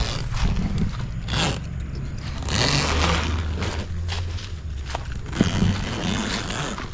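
Zipper on the heavy-duty cover of an Adventure Kings rooftop tent being pulled open by hand, with the cover's fabric scraping and rustling in several rough strokes.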